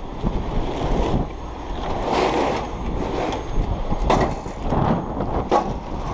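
Strong wind buffeting the microphone, a steady gusting rumble, with a few sharp knocks in the second half.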